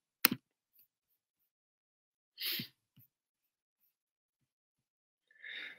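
Near silence broken by three small sounds: a short click near the start, a brief breath about two and a half seconds in, and a soft intake of breath just before the end.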